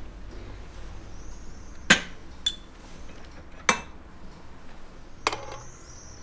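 Breakfast tableware clinking: a glass set down on a tray, then a metal stovetop moka pot and a cup knocking together as coffee is poured. Three sharp clinks come about a second and a half apart, with a lighter one just after the first.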